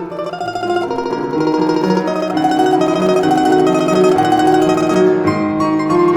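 Domra and grand piano playing together: the domra's melody over piano accompaniment, growing louder through the passage.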